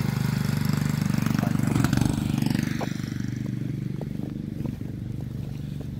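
Small single-stage snowblower's gas engine running steadily with a fast, even pulse, growing fainter about halfway through.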